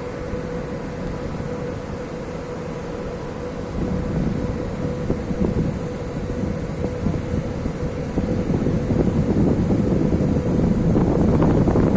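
Container ship's machinery running with a steady drone and a constant hum. Wind buffeting the microphone grows louder about two-thirds of the way in.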